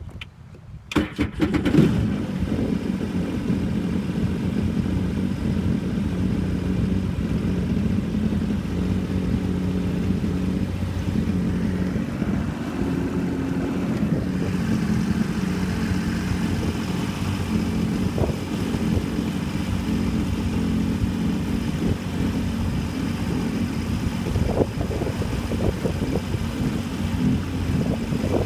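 Sea-Doo Wake personal watercraft's engine starting about a second in, then idling steadily with the craft stationary on the water.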